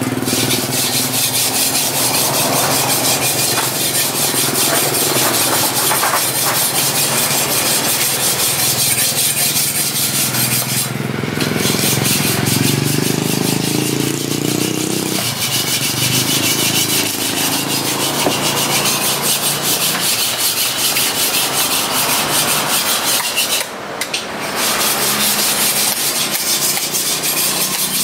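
Knife blade scraping the scales off a giant trevally on a wooden block: rapid, continuous rasping strokes, breaking off briefly twice.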